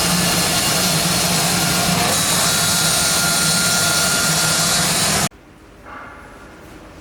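Digital CNC knife cutting machine running for composite-material cutting: a loud, steady rush of noise with a low hum, which cuts off suddenly about five seconds in, leaving a much quieter background.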